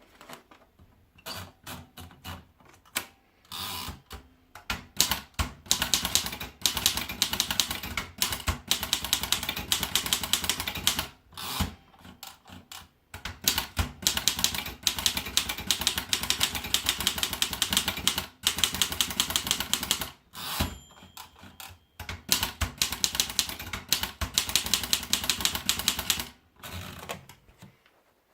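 Erika Model 5 manual typewriter being typed on: fast runs of sharp key and typebar strikes in bursts of several seconds, with short pauses between them.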